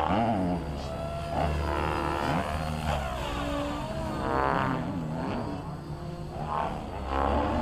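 Blade 700X electric RC helicopter in aerobatic flight: the whine of its motor and drivetrain and the rotor noise swing up and down in pitch again and again as it loads up through the manoeuvres.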